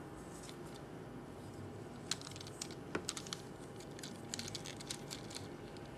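Faint plastic clicks and light rattles of a Transformers Revenge of the Fallen Deluxe Ratchet action figure as its joints and panels are folded and unclipped by hand during transformation. The clicks are scattered, starting about two seconds in, with a quick run of them a little after four seconds.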